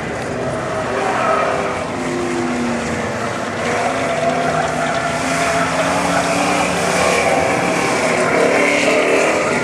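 1956 Chevy sedan's 355 small-block V8 working hard around an autocross course, its pitch climbing and dropping as it accelerates and lifts between corners, with tyre noise from hard cornering.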